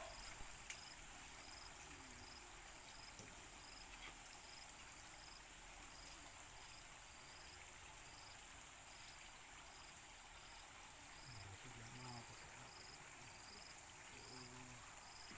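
Faint insects chirping: a short, high chirp repeating evenly about one and a half times a second over a steady high hiss, with faint distant voices now and then.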